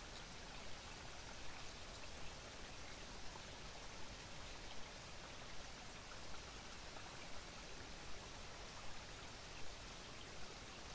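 Faint steady hiss of background noise, with scattered soft ticks and taps every second or so.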